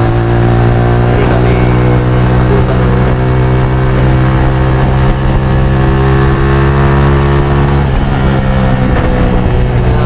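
Motorcycle engine running at a steady cruising pitch, with a slight change in its note about eight seconds in.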